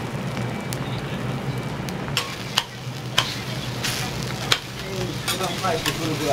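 Okonomiyaki frying on a hot iron teppan griddle, a steady sizzle, with about five sharp metal clacks of spatulas striking the plate.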